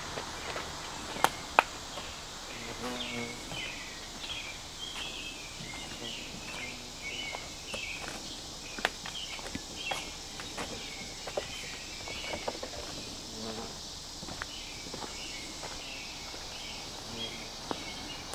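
Woodland ambience: a bird calling over and over in short high notes over a steady insect hiss, with scattered footsteps and clicks on the trail.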